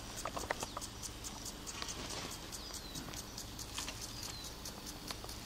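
Faint outdoor ambience: a steady series of short high ticks, several a second, with a few brief falling whistles, likely birds.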